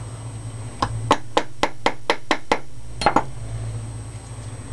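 Hammer tapping a punch to drive the bolt catch pin into an AR-15 lower receiver: a run of sharp metallic taps, about four a second, then a short pause and two more taps.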